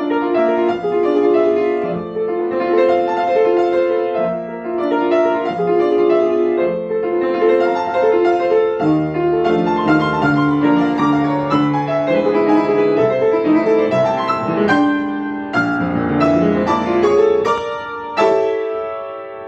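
Grand piano played solo: a melody over chords in a flowing classical piece, in phrases with brief breaks. Near the end a chord is held and dies away.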